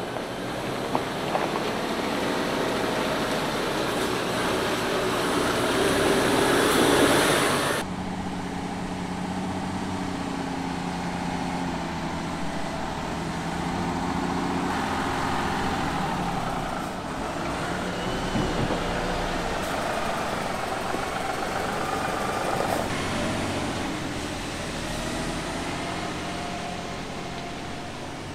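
Mercedes-Benz Arocs 8x8 dump truck's diesel engine running as it drives over a gravel track, with tyre and gravel noise. The noise builds over the first eight seconds, then drops suddenly to a steadier engine hum.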